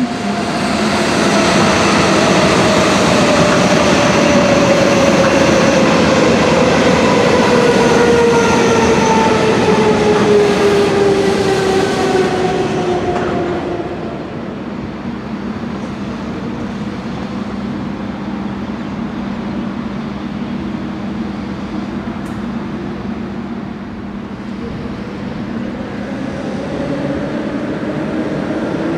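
Electric train running by, several whining tones falling slowly in pitch over about thirteen seconds, then settling to a quieter steady rail rumble. Near the end a Berlin S-Bahn train's whine rises as it approaches.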